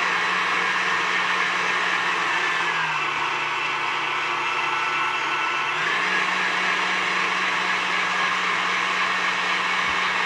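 KitchenAid stand mixer running on high with its wire whisk whipping heavy cream: a steady motor hum. The motor's pitch dips slightly for about three seconds in the middle, then comes back up.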